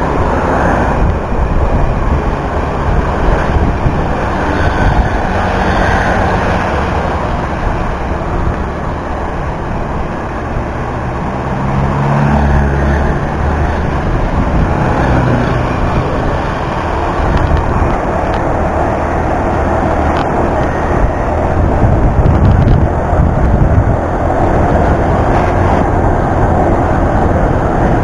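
Wind rushing over the action camera's microphone while a scooter is ridden fast, with the scooter's engine and road noise running underneath. The level swells and eases a few times as speed changes.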